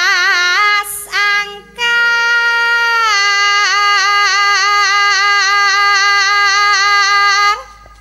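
Female Javanese sinden singing solo into a microphone with a forced, trembling Banyuwangi-style ornament. A short wavering phrase is followed by a brief break, then one long high note held with fast vibrato for about six seconds, lifting at the end.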